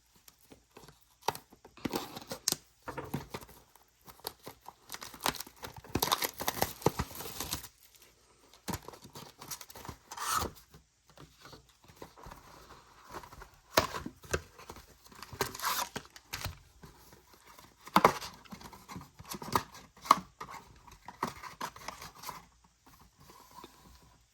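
A Pokémon Journey Together booster bundle being unwrapped by hand: irregular tearing, scratching and crinkling of plastic wrap and packaging, with sharp clicks and rustles as the box and packs are handled.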